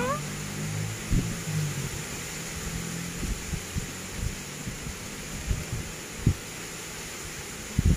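Outdoor background: a steady hiss with scattered low thumps, the sharpest about a second in, about six seconds in and just before the end. A cat's meow trails off at the very start.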